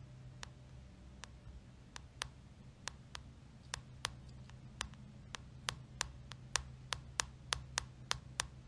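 Sharp light taps on the phone's touchscreen, a few spaced out at first and then quickening to about three a second near the end, over a faint steady low hum.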